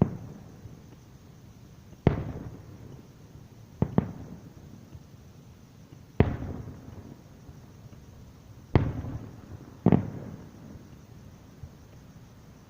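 Firework shells bursting in a pyrotechnic display: five booms at uneven intervals, each trailing off in a rolling echo.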